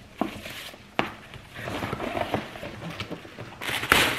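Hands opening a ribbon-tied cardboard gift box: soft rustling and a couple of sharp clicks, then tissue paper rustling and crinkling loudly near the end as it is pulled back.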